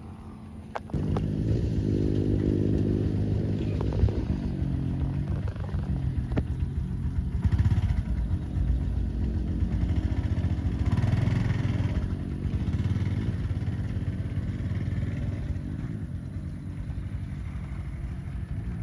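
An engine starts with a click about a second in, then keeps running with a steady low hum.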